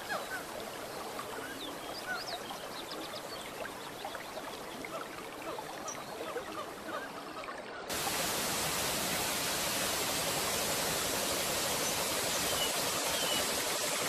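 Steady rush of falling water with many short bird chirps over it; about eight seconds in it switches abruptly to a louder, even rush of a waterfall pouring into a pool, with only the odd chirp.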